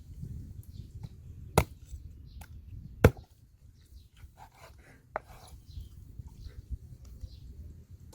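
Chopping on a cutting board: two sharp strikes about a second and a half apart, with lighter knocks and taps after them.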